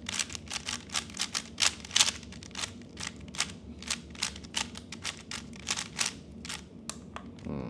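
A 3x3 Rubik's Cube being turned fast by hand: rapid, irregular plastic clicks of the layers snapping into place, several a second.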